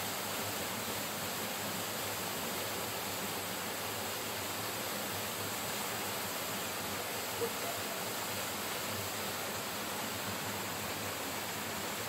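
Waterfall pouring down onto rocks: a steady, even rush of falling water.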